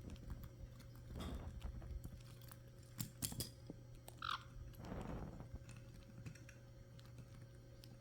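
Caique parrots chewing and tearing at something with their beaks: scattered small clicks and soft crunches, with one short high squeak about four seconds in.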